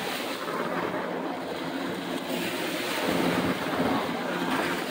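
Small waves washing around in shallow surf, with wind on the microphone and a faint steady low drone underneath.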